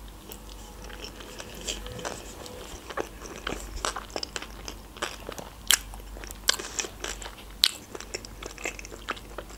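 Mouth chewing a sushi roll coated in orange fish roe: irregular wet clicks and crunches, a few louder ones in the second half.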